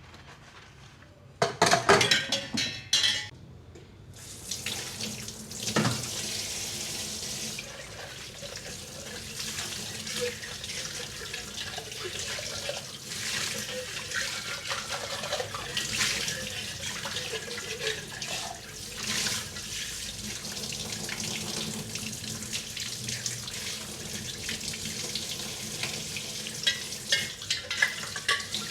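Kitchen tap running into a sink during hand dishwashing, with dishes clinking and knocking against each other. A burst of clattering comes about one and a half seconds in, and the tap runs steadily from about four seconds in, with more clinks near the end.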